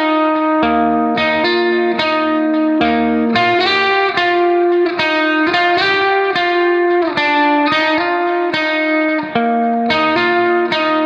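Background music: a plucked guitar playing a steady run of melodic notes.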